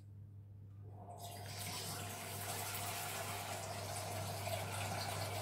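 Kitchen tap running, filling a saucepan with water. The water starts about a second in and then runs steadily.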